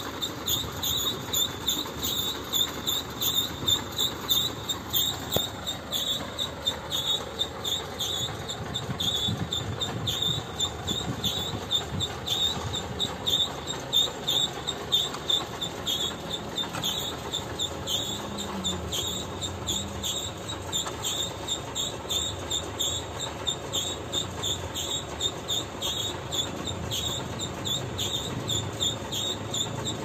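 MAN CLA 26.280 concrete mixer truck's diesel engine running, its note dropping in pitch about five seconds in, with a rapid, rhythmic high-pitched chirping over it.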